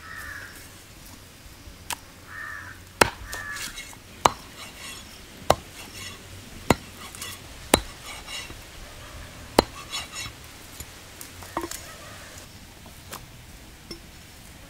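Heavy cleaver chopping boneless mutton on a wooden log chopping block: about ten sharp chops at uneven intervals, roughly one a second or so. Crows cawing a few times in the first few seconds.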